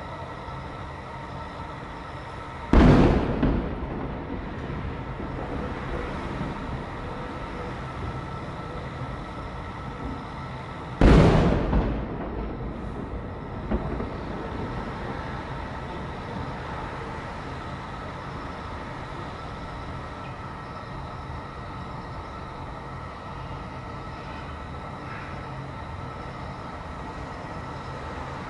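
Distant aerial firework shells bursting: two loud booms about eight seconds apart, each trailing off in a rolling echo, with a fainter bang about a second and a half after the second. A steady background noise runs underneath.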